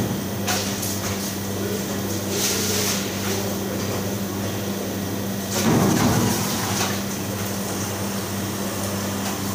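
Steady low hum of commercial kitchen equipment (refrigeration units and extractor hood), with a few brief knocks and rustles, the loudest about six seconds in.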